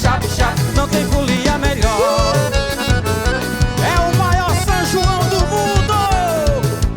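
Band music with a steady, quick beat and bass under a gliding melody line.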